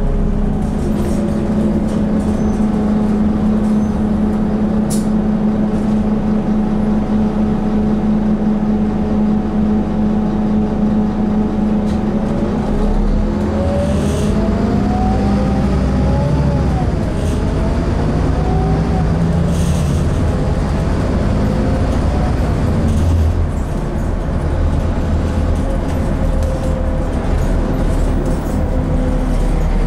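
Scania N230UD Enviro400 double-decker bus driving, heard from inside the passenger saloon: its diesel engine and road rumble hold a steady note at first, then about halfway through the engine note rises, falls back and rises again as the bus accelerates through the gears.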